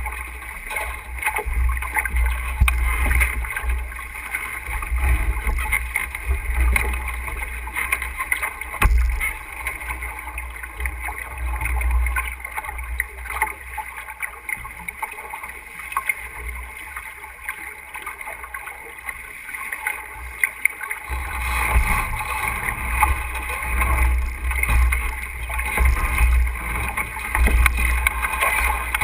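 Wind buffeting the microphone and water rushing along a sailboat's hull. The low wind rumble eases for a stretch in the middle and comes back stronger about two-thirds of the way in.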